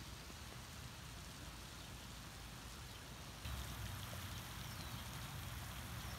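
Faint, steady splashing hiss of a pond fountain's spray falling back onto the water, a little louder from about three and a half seconds in.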